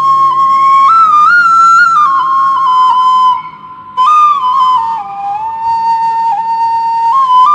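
Bamboo flute (suling) playing a slow melody of long held notes that step up and down, with a short breath pause about three and a half seconds in before the next phrase.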